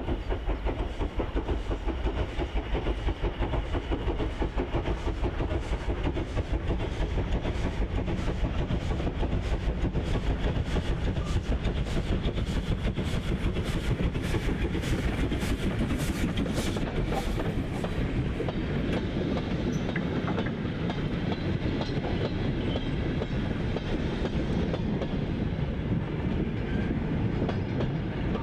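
LNER N7 0-6-2 tank locomotive No. 69621 steaming past with a goods train, its exhaust beats giving a regular pulse. About midway the wagons clatter by close, their wheels clicking sharply over the rail joints. A steadier rumble follows as the train runs off into the distance.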